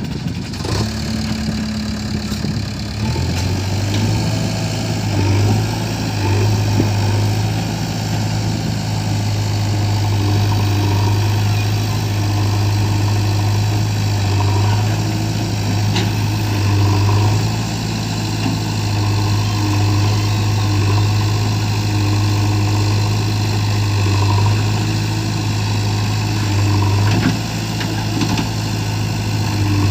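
Diesel engines of a JCB 3DX backhoe loader and a Mahindra 475 DI tractor running during loading; the engine note changes about three seconds in, then holds steady with small swells in level.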